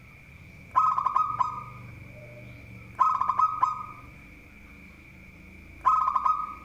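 Zebra dove (perkutut) cooing: three calls a few seconds apart, each a quick run of staccato notes running into a short held coo.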